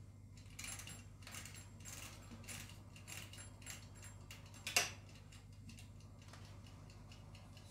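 Mechanical kitchen timer being wound round to 30 minutes, its dial clicking about three times a second, with one louder click near five seconds in. After that only faint ticks remain.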